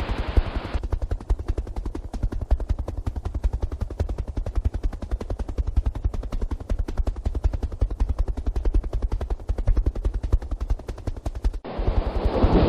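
Helicopter rotor chopping in a fast, even beat. A loud rushing noise covers it for the first second and returns shortly before the end.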